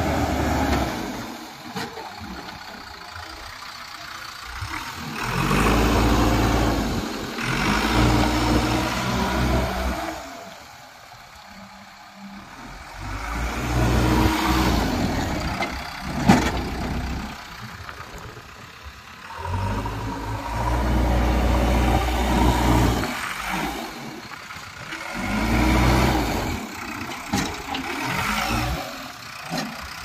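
JCB 3DX backhoe loader's diesel engine revving up and falling back to idle, about four times, with a single sharp knock partway through.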